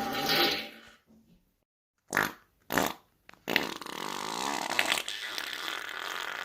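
A run of human farts. One trails off in the first second. After a second of quiet come two short ones about half a second apart, then a long, sputtering fart with a wavering pitch starts about three and a half seconds in and is still going at the end.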